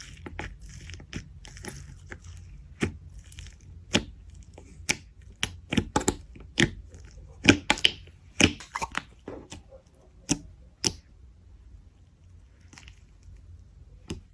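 Slime being squeezed and worked by hand, giving a run of sharp clicks and pops. They come thickest through the middle and thin out to faint handling after about eleven seconds.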